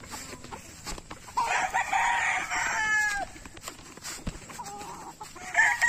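Gamecock roosters crowing: one long crow about a second and a half in that drops in pitch at its end, and another crow starting near the end.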